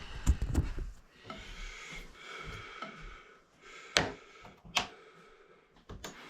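Handwork on a bathtub drain trip-lever fitting as a screw is driven in with a screwdriver: scraping and rubbing of metal parts, with a few sharp clicks, the loudest two close together about four seconds in.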